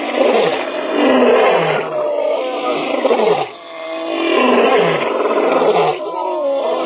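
Several male lions roaring together in an overlapping chorus, with repeated calls that fall in pitch. There is a short lull about three and a half seconds in, before the roaring builds again.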